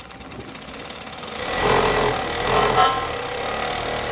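Kansai 1404PMD four-needle chainstitch sewing machine, driven by its brushless motor, stitching through fabric at speed. It speeds up over the first second or two, runs fast and loud through the middle, and stops near the end.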